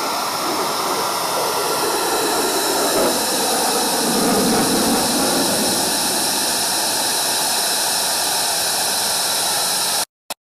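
Jet noise from an F-22 Raptor's twin Pratt & Whitney F119 turbofans, with the afterburners lit, as the fighter manoeuvres overhead. It is a steady, loud rushing noise that swells a little around the middle and then cuts off suddenly near the end.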